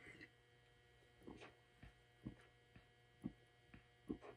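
Near silence: a faint steady electrical hum from room lights, with about six soft gulps and swallows as a person drinks soda from a plastic bottle.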